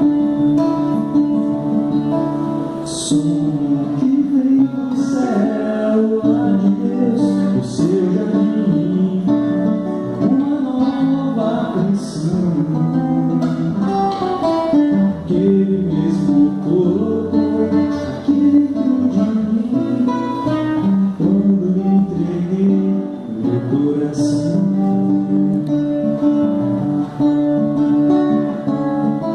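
Acoustic guitar playing a church worship song, notes ringing on continuously, with singing at times.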